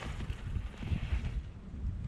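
Wind buffeting the microphone in gusty low rumbles. Under it is the hiss of a downhill mountain bike's tyres scrubbing through loose dirt as it passes close, fading after about a second.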